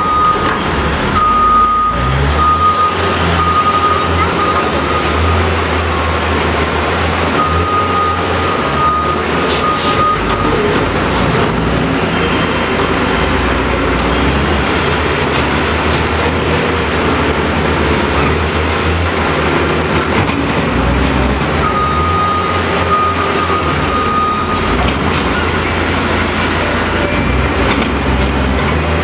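Skid steer's diesel engine running hard and steady, with its backup alarm beeping in three stretches as the machine reverses.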